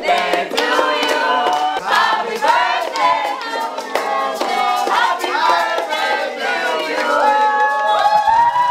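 A group of men and women singing together loudly in unison, with hand claps, ending on one long held note.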